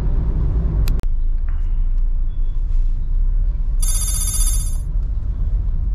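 Steady low road and engine rumble inside a moving Honda City's cabin. There is a click about a second in, and a little under four seconds in a high, warbling electronic tone sounds for about a second.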